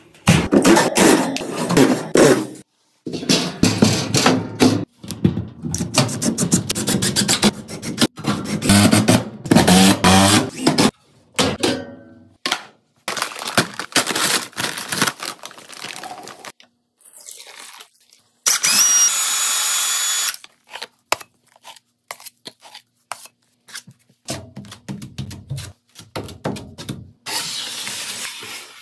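A quick-cut series of drywall and vent-fitting work sounds: a metal vent grille being handled, tools knocking and scraping, a short steady whirr of a power tool about two-thirds of the way through, and a bag of powdered joint compound being opened over a plastic bucket. Near the end a metal taping knife scrapes wet joint compound onto the wall.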